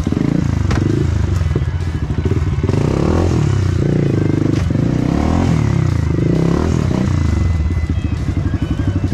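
Dirt bike engines revving, their pitch rising and falling over and over.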